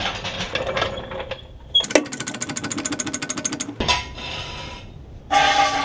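Steel floor jack being worked under a pickup's rear axle: metal clanks and scraping, then a sharp click and a fast even run of clicks, about ten a second, for nearly two seconds. A short squeal comes near the end.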